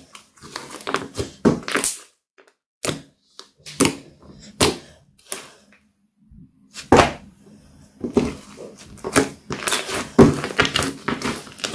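Hands kneading, stretching and squeezing a thick, glossy slime, making irregular wet squelches and sharp clicks and pops of trapped air. The sounds come sparsely in the middle and crowd together in the last few seconds.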